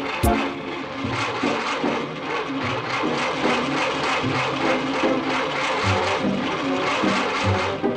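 Cartoon car engines started with the ignition key and running with a dense, rough, rapidly pulsing noise.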